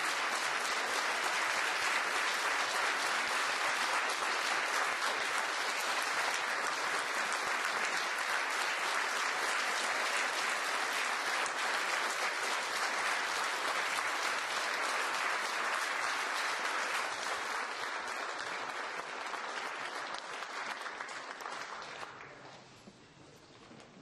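Large audience applauding steadily, a dense wash of many hands clapping. The applause thins over the last several seconds and dies away near the end.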